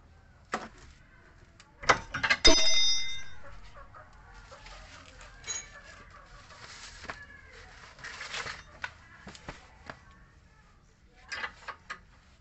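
Clinks and knocks of a wrench and metal suspension parts as a new stabilizer link is fitted on a Ford EcoSport's front suspension, with one loud metallic clank about two and a half seconds in that rings on briefly.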